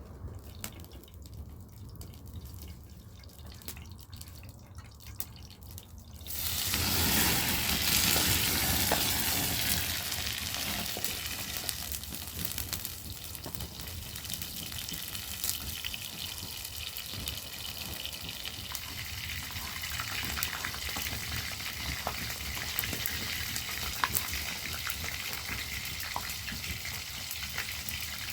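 Food sizzling in hot oil in a pan. It starts suddenly about six seconds in, then goes on steadily, easing a little, with small crackles.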